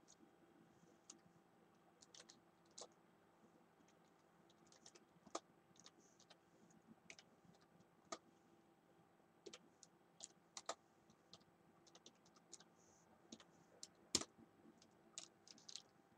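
Faint, irregular typing on a computer keyboard: scattered single keystrokes and clicks, with a faint steady hum underneath.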